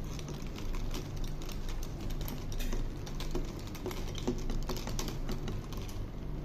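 Metal bar spoon stirring ice in a disposable plastic cup: a quick, uneven run of clicks and rattles as the ice knocks against the spoon and the cup, dying away near the end. The stirring mixes the blackcurrant syrup up from the bottom through the drink.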